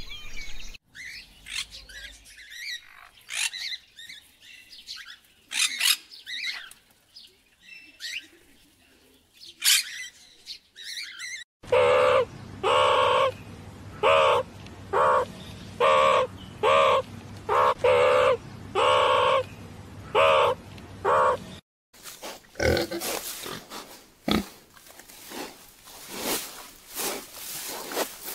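Scattered bird chirps, then a run of about ten loud calls, roughly one a second, from meerkats, then pigs grunting.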